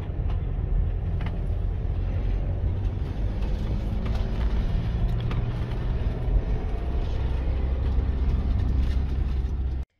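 Auto-Sleepers Corinium FB motorhome driving slowly, heard from inside the cab: a steady engine and road rumble with occasional clicks and knocks. It cuts off suddenly near the end.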